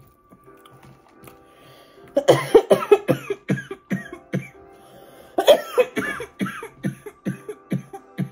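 A woman laughing hard in two fits of rapid, breathy bursts that verge on coughing, the second fit starting about halfway through.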